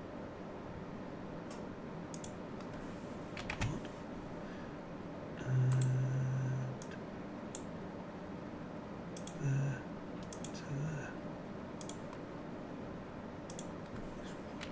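Sparse computer keyboard and mouse clicks, one at a time, while a part is dimensioned in CAD software. A short low hum about six seconds in is the loudest sound, with two briefer ones later.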